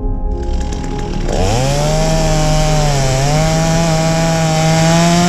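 Chainsaw engine running: it comes in early, then revs up sharply about a second in and holds at a high, steady pitch, sagging slightly around three seconds in and climbing again near the end.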